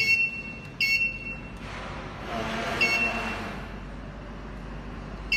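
Electric open fryer's digital control panel beeping as its keys are pressed: three short, high-pitched electronic beeps, at the start, about a second in and near the middle.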